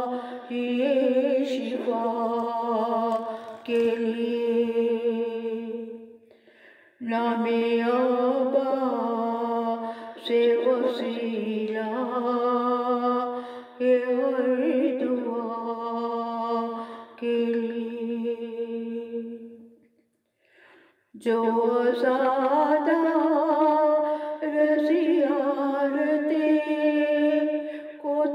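A woman reciting a munajaat (devotional supplication) as an unaccompanied melodic chant, with long held, wavering notes. She breaks off briefly twice, about six seconds in and again about twenty seconds in.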